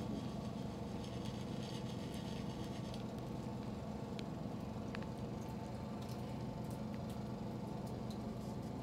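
Steady low machine hum, with a couple of faint clicks around the middle.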